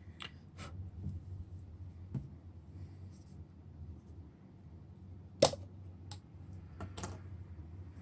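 A handful of short, sharp clicks and taps of small hard objects being handled on a work surface, the loudest about five and a half seconds in, over a low steady hum.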